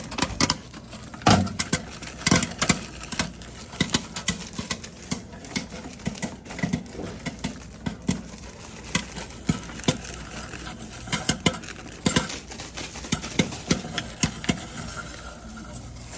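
Popcorn kernels popping, irregular sharp pops several times a second over a faint steady low hum.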